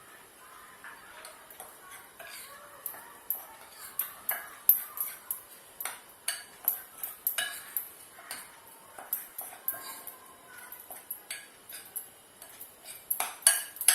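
A spoon clinking and scraping against a bowl while flour, sugar and oil are mixed by hand: irregular sharp knocks, about one or two a second, with a quick cluster near the end.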